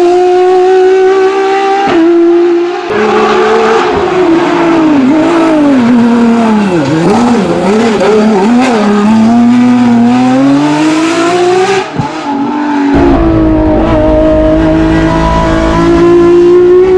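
De-stroked 3.3-litre BMW S38 straight-six of a Ford Escort Mk2 hillclimb car revving hard. Its pitch climbs, then dips and rises in quick waves several times as the car slows through a hairpin, then climbs steadily again as it accelerates away. In the last few seconds it is heard from inside the cockpit at high revs, with a heavy low rumble.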